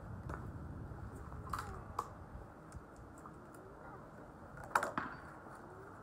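A few sharp metallic clicks from a CZ 457 .22 rimfire bolt-action rifle being handled, the loudest a double clack about five seconds in, consistent with the bolt being worked after a fired casing failed to come out.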